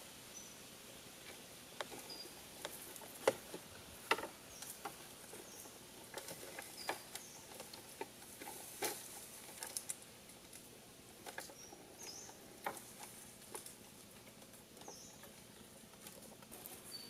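Irregular light clicks and knocks of bamboo poles and slats creaking and tapping under a man's footsteps as he crosses a bamboo walkway, the sharpest knocks about three and four seconds in. A few short high chirps sound now and then.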